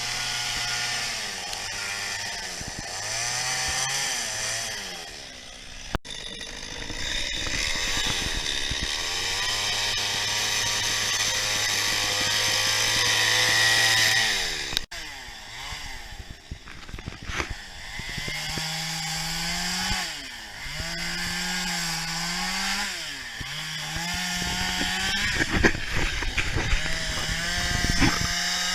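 Two-stroke chainsaw cutting into a wooden log during carving, the engine speeding up and slowing down again and again as the throttle is worked. The sound breaks off sharply twice and carries on.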